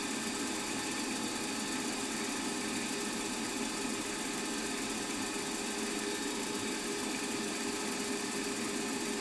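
Milling machine spindle running at a steady speed while a long-series 70 thou drill bores a small, deep hole in metal: an even motor hum with faint steady tones.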